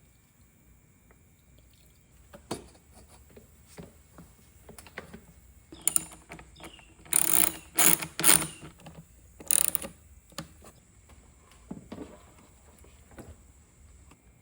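Workshop handling noises: scattered clicks and knocks of tools and parts being handled on a dirt bike, with a few louder rattling bursts in the middle.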